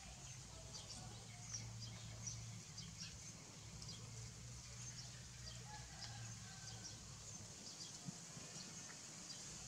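Quiet background with a low steady hum, soft scattered clicks and a few faint distant bird calls.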